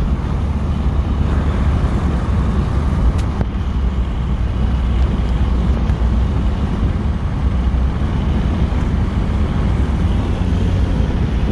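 Steady low rumble of a car driving, heard from inside the cabin: road and engine noise at an even level.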